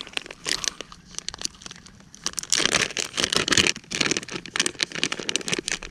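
Plastic soft-bait packages crinkling and rustling as they are handled and sorted through in a tackle bag. The crinkling is sparse for the first couple of seconds, then busier and louder from about halfway.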